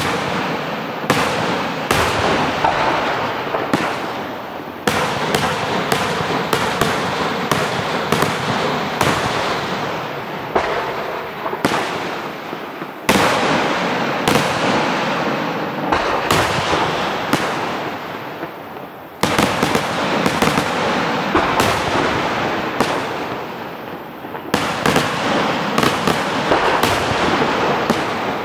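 Aerial fireworks display: shells bursting in quick succession, many sharp bangs over a continuous dense crackle, with especially heavy bangs about 13 and 19 seconds in.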